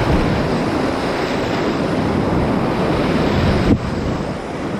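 Rushing whitewater of a river rapid with wind buffeting the microphone; a brief knock about three-quarters of the way through.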